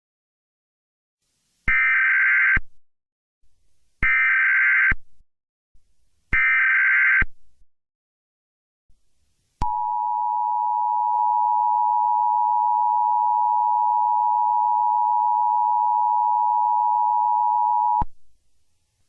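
Emergency Alert System tones. First come three one-second bursts of SAME header data tones, about two seconds apart. About ten seconds in, the two-tone EAS attention signal (853 and 960 Hz sounded together) starts and holds steady for about eight seconds before cutting off sharply.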